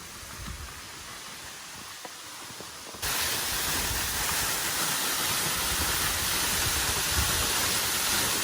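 Waterfall rushing: a loud, steady roar of falling water that starts abruptly about three seconds in. Before it there is a quieter, even outdoor noise.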